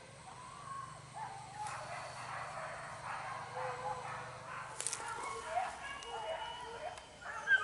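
Hunting dogs repeatedly barking and yelping as they bay a wild boar, with one sharp click about five seconds in.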